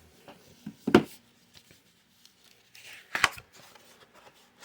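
Coin proof-set packaging being handled: faint rustling and small ticks, with two sharp clicks, about a second in and just after three seconds.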